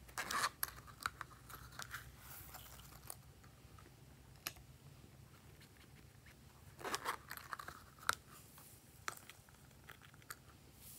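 Handling noise from a rubber strawberry-shaped zipper pouch being opened and blue glitter flakes tipped out of it: scattered small clicks and crinkly rustling, densest in the first couple of seconds and again about seven seconds in.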